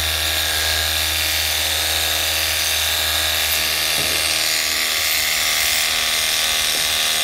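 TNEIIA 48V cordless pressure washer running steadily: its battery motor and piston pump give a strong low buzz, with the hiss of the water jet spraying onto a boat hull.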